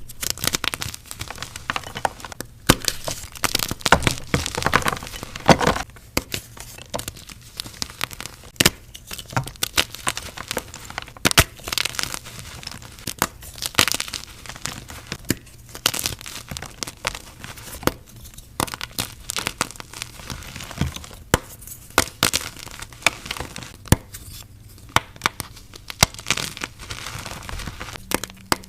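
Blocks of gym chalk being crushed and crumbled, a continuous run of irregular crunches and sharp crackles.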